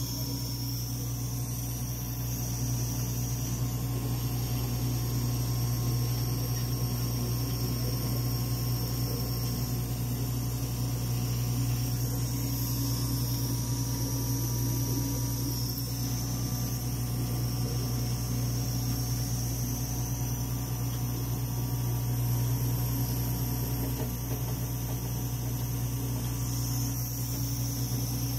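Steady low electrical hum with fan-like hiss from a running Dimension RxL clinical chemistry analyzer.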